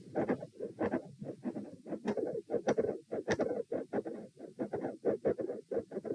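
Heartbeat heard through a stethoscope at the chest: a quick run of short thuds with scratchy contact noise. The recording is labelled as showing a mid-systolic click and a fixed split S2.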